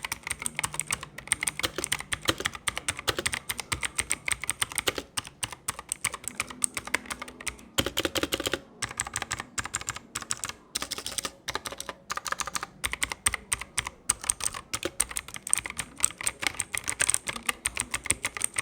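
Ant Esports MK1200 Mini 60% mechanical keyboard with clicky blue switches being typed on fast: a dense stream of sharp key clicks, broken by a few brief pauses.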